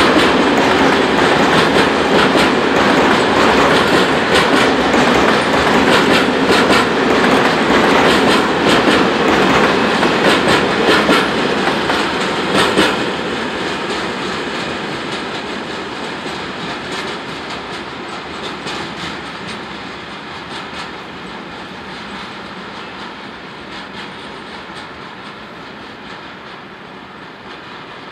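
Freight train of loaded timber wagons rolling past, the wheels clicking rhythmically over the rails. About halfway through, the loud rattle drops away and the train's sound fades steadily as it recedes.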